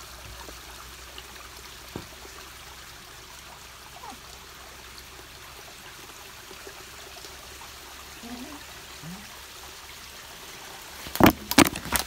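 Steady rush of a flowing river, with a cluster of loud, sharp cracks and knocks near the end.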